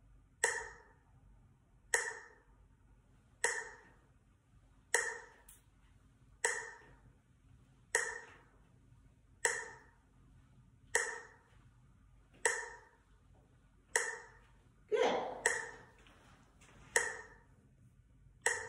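Online metronome set to 40 beats per minute, giving a short ringing tick every second and a half. Near the end, one extra, lower knock comes just before a beat.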